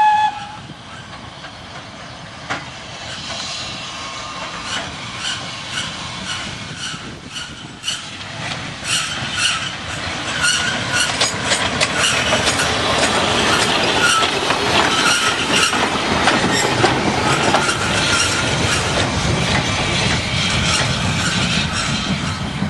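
Small industrial steam tank locomotive with a passenger train: a short whistle toot at the start, then the engine working, with regular beats, and its wheels clacking and squealing on the rails. The train grows louder as it draws near and passes.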